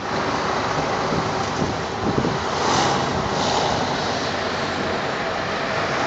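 Street traffic noise: cars driving past on the road, with wind rushing on the microphone.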